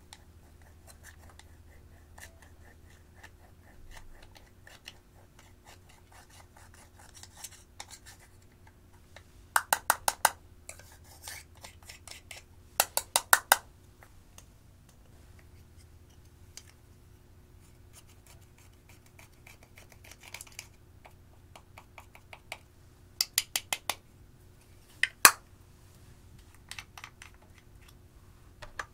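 A small metal tool scraping and crumbling pressed powder eyeshadow out of a plastic compact. Several quick bursts of sharp taps come through it, as the upturned compact is knocked to shake the loosened powder out.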